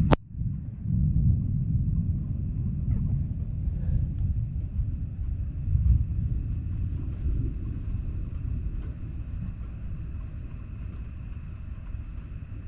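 Thunder: a sharp crack right at the start, then a low rumble that rolls on with several swells and slowly fades.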